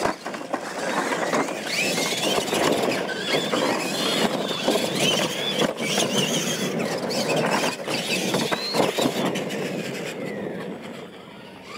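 Radio-controlled monster trucks racing on dirt: the high whine of their electric motors and gears rises and falls with the throttle over a steady noisy rush, with a few sharp knocks, and it eases off near the end.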